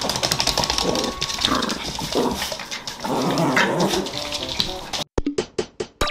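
Jack Russell terrier barking in short bursts over the steady hiss of running water. About five seconds in, the sound cuts off abruptly to light music of plucked, percussive notes.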